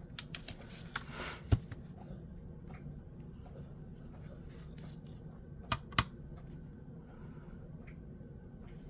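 Faint handling of a small Ultem plastic fidget slider as it is set on a scale: a brief rustle, a sharp click about a second and a half in, and two quick clicks near the six-second mark.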